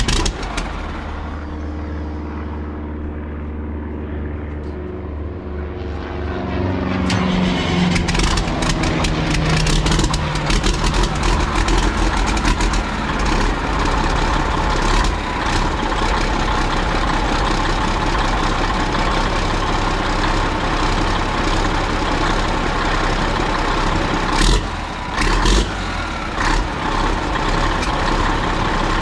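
Heavy truck diesel engine, freshly swapped into a Ford cabover, cranking steadily on the starter, then catching about six seconds in and rising in speed. It settles into rough, loud running as it first fires after the swap and fuel-system priming, with a few brief surges near the end.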